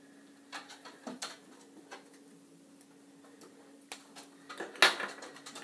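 Plastic felt-tip pens clicking and clattering on the desk as they are put down and picked up: irregular light clicks, with one sharp knock near the end.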